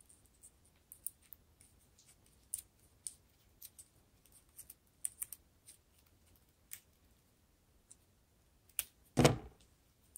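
Light, scattered clicks and crinkles of a cut plastic drinking straw being handled and pressed between fingers, with one louder knock about nine seconds in.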